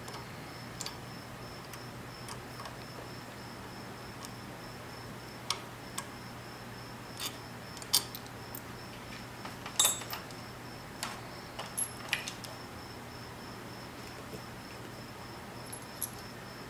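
Irregular metallic clicks and clinks of a wrench and bolts as the two bottom bolts of a motorcycle handlebar clamp are taken out, over a steady low hum.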